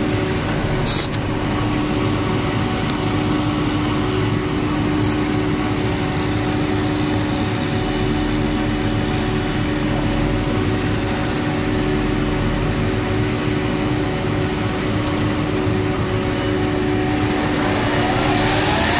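Krone Big X 650 forage harvester running steadily as its X-Disc header cuts standing cereal, a loud even machine noise with a steady hum. Near the end a louder engine sound with a rising pitch comes in as a tractor draws close.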